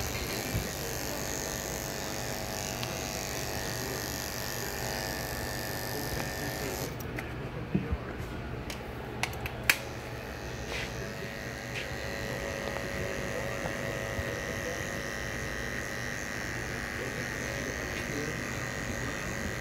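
Electric hair clippers buzzing steadily as they cut the sides of a head for a skin fade. The buzz drops off for a few seconds near the middle, with a few sharp clicks, then comes back.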